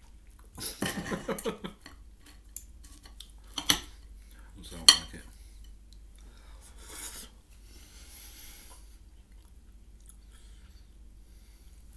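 A metal fork clinking and scraping on a dinner plate while roast potato is cut and speared: a run of scraping near the start, then several sharp clinks, the loudest about five seconds in.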